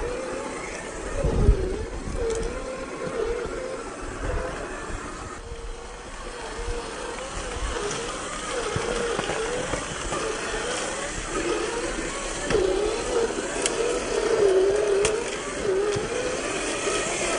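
Electric motor and gearbox of a 1/10 scale RC rock crawler whining, the pitch rising and falling as the throttle is worked, with a few low knocks.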